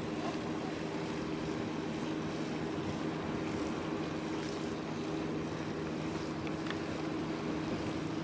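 Steady drone of a vessel's engine, a constant low hum with wind and lapping water over it.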